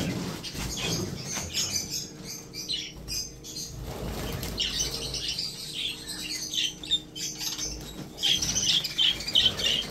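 A flock of budgerigars chirping and chattering in a flight cage, with wings fluttering as the birds scatter from a hand reaching in to catch them. The chatter grows busier and louder near the end.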